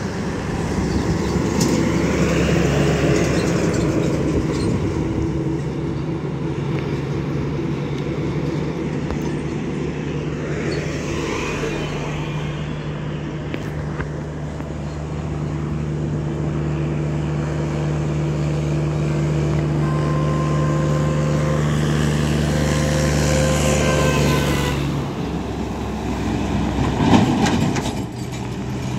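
Heavy diesel trucks and other traffic passing on a highway: a steady engine drone with tyre and road noise that swells each time a vehicle goes by, a few seconds in, about eleven seconds in, and again near the end.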